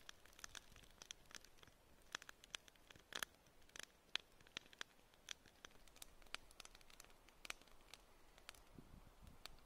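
Faint crackling of a wood campfire: scattered sharp little pops, a few each second at irregular intervals, over near silence.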